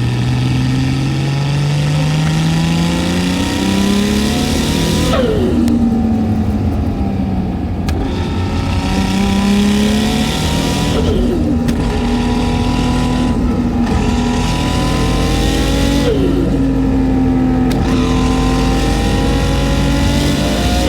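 Single-turbo HKS 2.8-litre stroker RB26 straight-six in a Nissan Skyline R32 GT-R pulling hard under boost, heard from inside the cabin. Its pitch climbs through each gear and drops at each of about four upshifts.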